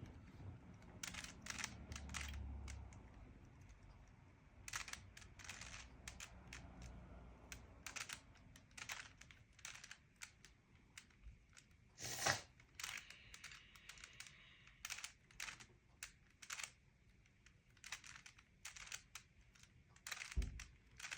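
Rubik's cube layers being twisted by hand: a long run of faint, irregular plastic clicks and clacks, with one louder clack about twelve seconds in and a dull knock near the end.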